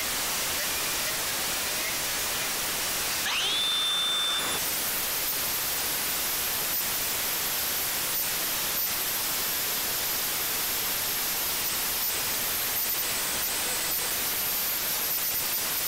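Angle grinders working a plasma-cut steel key holder, taking off cutting dross: a cone wire wheel on a corded 4-inch grinder, then a 120-grit flap disc on a cordless grinder. A steady grinding noise, with a rising whine that levels off about three seconds in.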